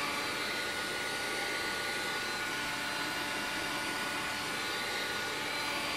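Handheld electric heat gun running steadily, a rush of blown air with a thin steady whine, drying a water-soaked cane speaker grill cloth so it shrinks tight.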